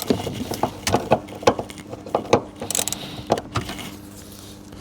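Irregular metallic clicks and clinks of small metal parts and tools being handled, over a faint steady hum.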